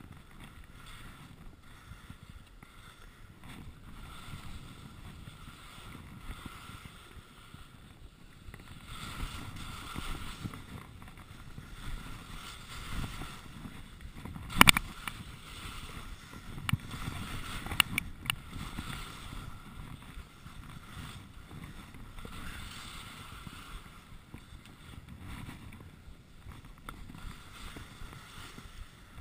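Skis hissing and scraping over packed snow during a downhill run, with wind on the microphone, rising and falling with the turns. A few sharp knocks about halfway through, the first the loudest.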